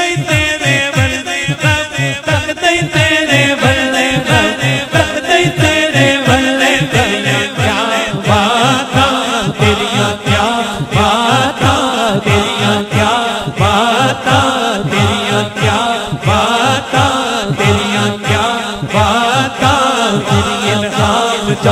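Male naat reciter singing a devotional melody into a microphone over a steady, low pulsing rhythmic backing.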